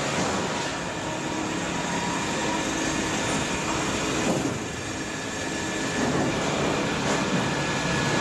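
Sawmill machinery running: a continuous mechanical noise with a few faint steady whines, easing slightly about four and a half seconds in.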